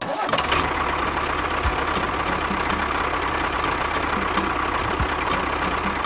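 A small motor or engine running steadily, with a fast regular ticking about four times a second, starting abruptly at the beginning.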